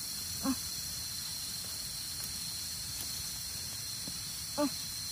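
Steady high-pitched hiss throughout, broken by two brief voice sounds, one about half a second in and one near the end.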